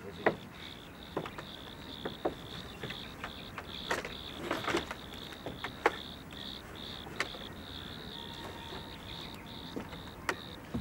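A cricket chirping steadily, about three chirps a second, with scattered sharp knocks and scrapes over it.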